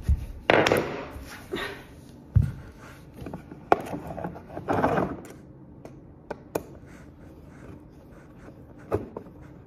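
Clunks, rustling and clicks from handling an Amazon Basics dumbbell rack and a Phillips screwdriver during assembly. The sounds are loudest in the first second and again around five seconds in, then quieter, with a few small clicks as a screw is driven in.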